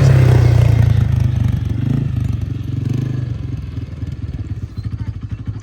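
A motor vehicle's engine running, loud at first and fading steadily, with an even pulsing rhythm in the second half.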